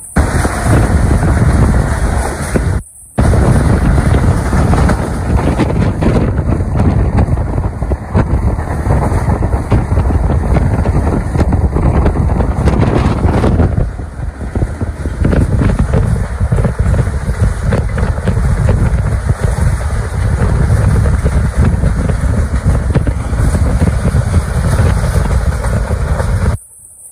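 Running noise of a moving passenger train heard from an open window: a loud, steady rush of wind buffeting the microphone over the rumble of the coaches on the track. The sound cuts out briefly about three seconds in and again near the end.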